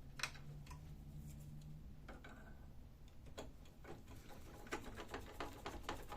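A screwdriver driving back the screw that holds a new scanner hinge on a Canon laser printer: faint irregular clicks and ticks of metal and plastic, coming thicker in the second half, with a low hum in the first two seconds.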